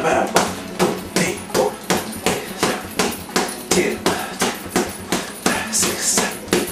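Gloved punches landing on a heavy punching bag in a steady rhythm, about three blows a second.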